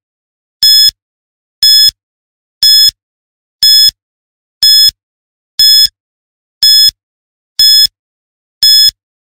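Countdown timer beeping once a second, a short high electronic beep each time, nine in a row, ticking off the seconds of a ten-second answer time.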